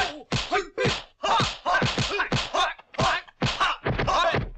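Dubbed kung fu fight sound effects: a rapid, uneven string of punch and block impacts, about two or three a second, several of them paired with short grunts or shouts from the fighters.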